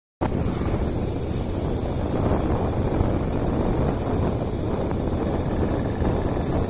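Steady wind rush on the microphone mixed with road and engine noise from a moving motorcycle. The sound drops out for a moment at the very start, then carries on evenly.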